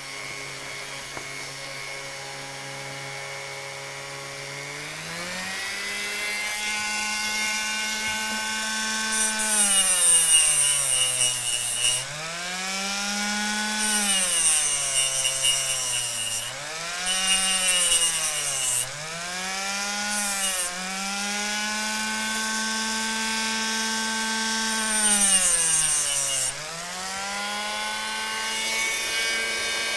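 Dremel rotary tool running a thin metal slitting disc, its motor whine stepping up in pitch about five seconds in. The disc cuts into a hard plastic model railway coupling in several hissing bursts, and the motor note drops and recovers each time it cuts.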